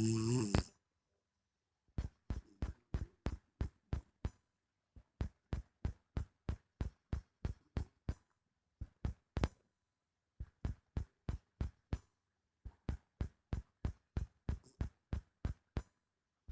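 A sleeping person's snore tails off in the first second and another begins at the very end. Between them comes a long run of sharp clicks, about three or four a second, in short runs with brief pauses.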